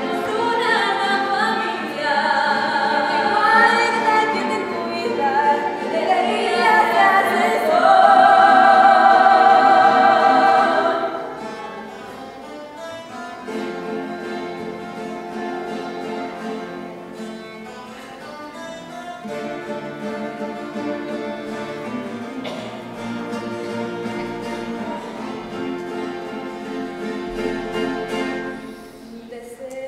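A young woman singing solo with a wavering vibrato, loud for the first ten seconds or so and ending on a long held note about eleven seconds in; after that the music continues more quietly.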